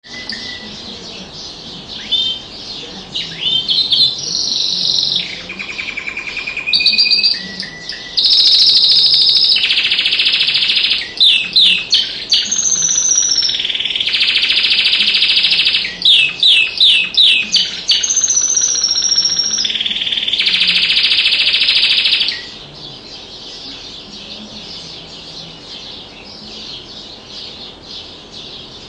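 Domestic canary singing a long song of rapid trills, sustained rolls and quick falling whistled notes. The song stops about three-quarters of the way through, leaving only a faint high background.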